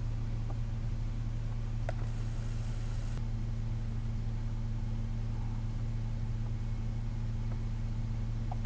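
Vehicle engine idling, heard as a steady low hum from inside the cab, with a few faint clicks.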